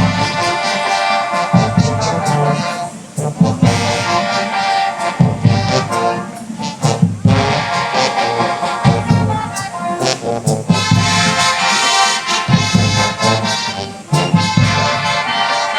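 Marching band brass playing a slow ballad arrangement: sustained full chords over heavy low brass, in phrases separated by short breaks.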